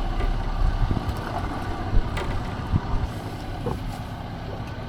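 Wind rumbling on the microphone aboard a small fishing boat, easing off about three seconds in, with a few light clicks and knocks scattered through it.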